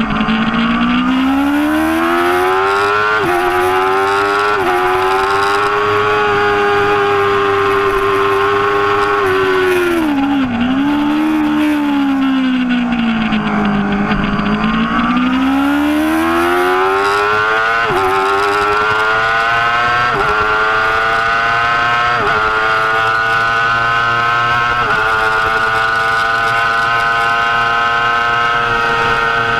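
2005 Yamaha R6 inline-four engine at full racing revs, heard from on the bike. It pulls up through two quick upshifts, then the revs drop away with a sharp downshift for a slow corner. It climbs back up through four upshifts and holds a high, steady scream on the straight.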